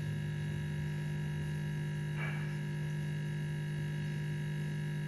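Steady electrical hum, a constant low drone with thin higher tones above it, and a faint soft sound about two seconds in.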